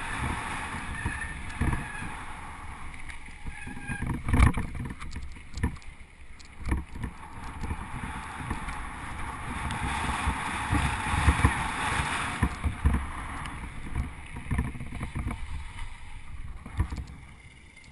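Bicycle rolling fast over a gravel track: steady tyre rumble and wind noise, broken by sharp knocks and rattles as it jolts over bumps, the biggest about four and a half seconds in.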